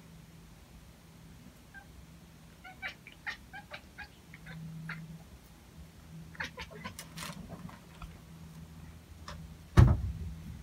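Pet cat at a window, its paws and claws making runs of short, light clicks and scratches against the window, then one heavy thump near the end.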